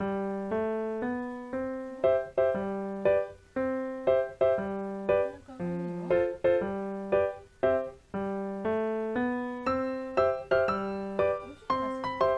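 Background piano music: a gentle tune of struck notes and chords, about two notes a second, each ringing and fading before the next.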